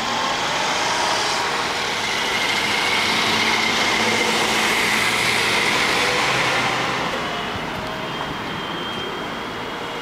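Street traffic: a vehicle passes close by. Its rushing noise swells over the first few seconds, carries a faint high whine while it is loudest, and fades away after about seven seconds.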